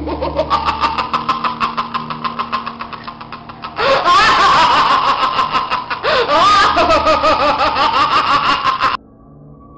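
A cartoon villain's evil laugh: rapid, evenly pulsed cackling. It gets louder with a second, higher laugh layered in about four seconds in, then cuts off abruptly near the end.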